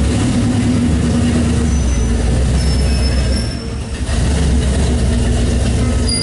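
The V8 of an XB Ford Falcon Mad Max Interceptor replica running through its side exhausts as the car rolls slowly forward, with a brief drop in level about three and a half seconds in.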